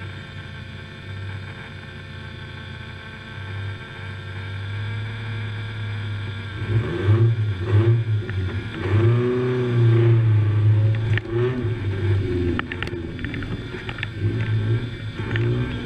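Suzuki Samurai rally car's engine heard from inside the cabin: low and steady for the first few seconds, then revving up and down hard from about halfway. A few sharp knocks and rattles come in the later seconds.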